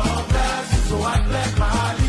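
Background music with a steady bass-heavy beat, about three to four beats a second.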